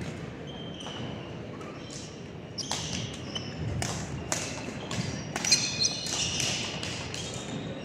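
Badminton rally: a quick series of sharp racket hits on the shuttlecock, beginning about two and a half seconds in, with sneakers squeaking on the court floor in between.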